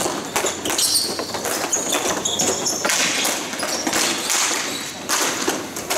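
Ball hockey play: a rapid, irregular run of sharp clacks and taps as sticks and the ball strike the rink floor.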